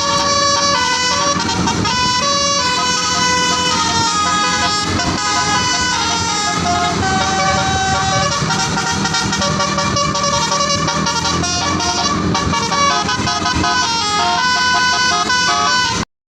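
Basuri telolet multi-tone horn on a tour bus playing a melody: several horn tones sounding together and stepping quickly from note to note, then cutting off suddenly near the end.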